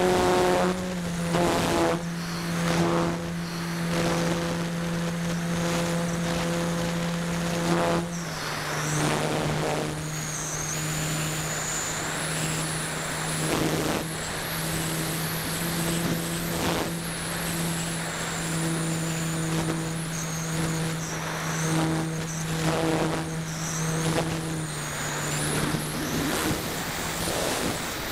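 Parkzone Radian's electric motor and propeller humming steadily in flight, heard from the plane's own camera, with wind rushing past the airframe. The hum steps down a little in pitch about a second in and again about eight seconds in.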